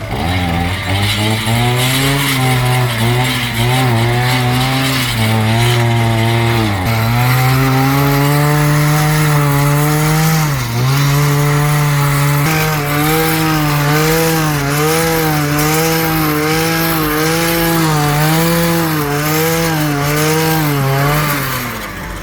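Small gasoline garden tiller engine running hard, its speed wavering and dipping sharply twice before settling into a steady rise and fall about once a second, as when the tines load and unload in soil. It stops shortly before the end.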